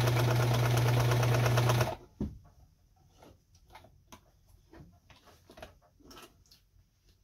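A Kenmore 158.17740 sewing machine running at speed through a test seam: its motor gives a steady hum under a rapid, even needle clatter. About two seconds in it stops abruptly, leaving only a few faint clicks.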